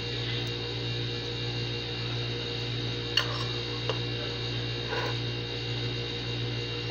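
Metal spoon clinking against a plate: one sharp click about three seconds in and a lighter tick just under a second later, over a steady electrical hum.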